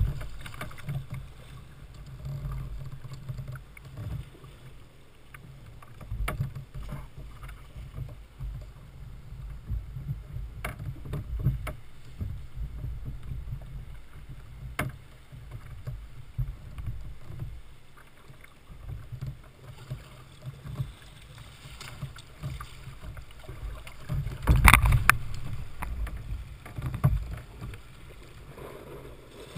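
Water slapping and splashing against the hull of a Jackson Coosa kayak as it moves down a rocky river, heard as an uneven low rumble with scattered small splashes and knocks. One louder burst of sound comes near the end.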